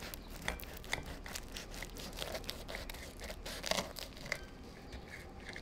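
Knife sawing down through a crisp oven-baked ham-and-cheese toast sandwich, the browned bread crust crunching and crackling in many small irregular cracks.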